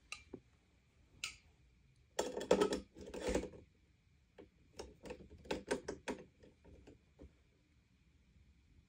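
Clicks, knocks and rattling of the Sanitaire upright vacuum's handle tube and fittings being handled and fitted by hand during assembly: a dense rattle about two seconds in, then a run of separate sharp clicks.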